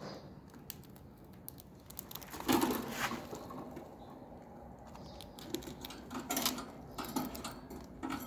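Pigeons feeding, their beaks pecking at scattered grain in an uneven patter of quick clicks, busiest about two and a half seconds in.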